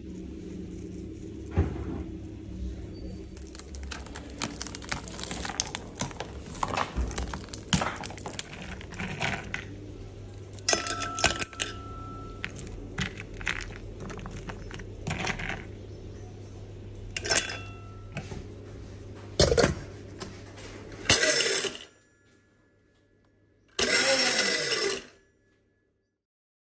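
Hard caramel-coated roasted hazelnuts clicking and clinking as they are broken apart by hand and dropped into a metal grinder bowl. Near the end an electric grinder runs in two short bursts, grinding the candied nuts into praliné.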